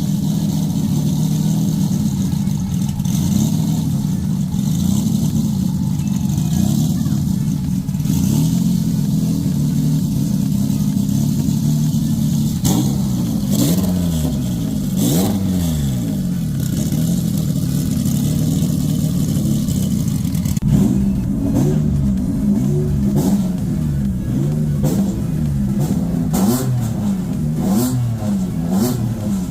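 Subaru JDM STI's turbocharged flat-four engine running on freshly installed PowerRevRacing heads with bigger cams, revved up and down several times, mostly in the second half.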